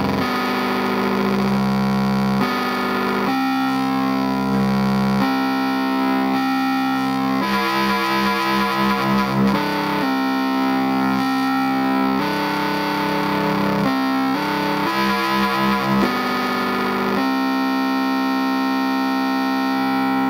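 Electronic keyboard synthesizer played through a homemade portable PA speaker box: a run of held, distorted synth notes and chords, changing every second or two.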